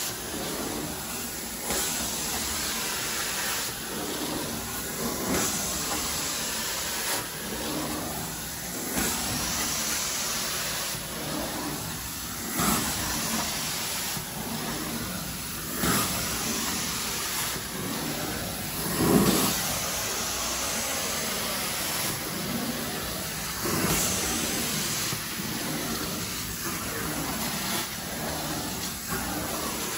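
Carpet-cleaning extraction wand hissing with suction and spray as it is drawn across the carpet. The rush swells and eases in repeated strokes a couple of seconds apart.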